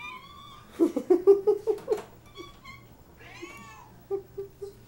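House cats, a calico among them, meowing over and over. A high rising meow at the start, then a quick run of short lower calls about a second in, and another high meow past the middle.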